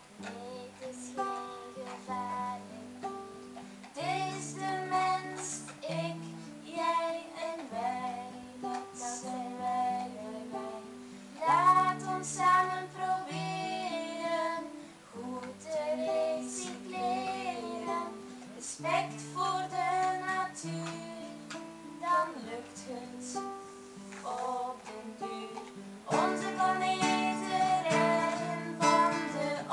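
A girl singing a self-written song, accompanied on acoustic guitar. The guitar playing grows louder and fuller toward the end.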